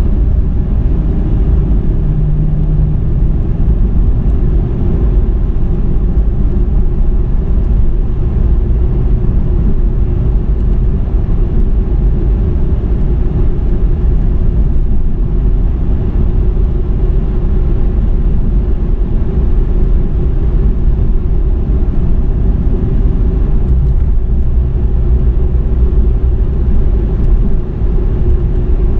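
Steady low rumble of a 2007 Dodge Charger being driven, its engine and tyre road noise heard from inside the cabin.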